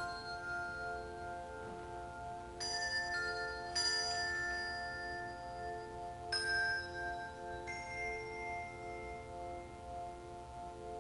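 Handbell choir holding a chord of several bell tones that pulse softly in level, the sustained ring of the 'singing bell' technique, with wooden dowels rubbed around the bells' rims. Over it, four single bells are struck and ring out, about a second apart near the start and again in the middle.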